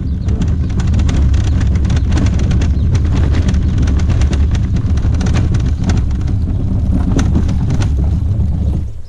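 Plastic hull of a Feelfree Lure 13.5 fishing kayak scraping down a grooved concrete launch ramp into the water: a loud, steady grinding rumble full of fine scratchy clicks, which stops shortly before the end.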